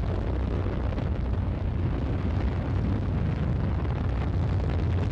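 Steady low rumble of the Soyuz-2.1b rocket's engines in flight, with the first-stage boosters and core stage still firing.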